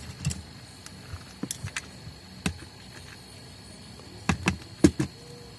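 Hard plastic parts of an electric sander's housing clicking and knocking as it is handled and fitted back together, with a few scattered taps and the loudest knock near the end.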